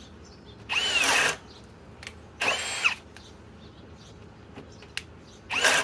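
Ryobi 18V hammer drill in high gear (speed two) driving a 1 3/8-inch spade bit into a pine board, in three short bursts, each a whine that rises and then drops away. It bogs and cuts out each time: in speed two it lacks the torque to bore with a bit this size.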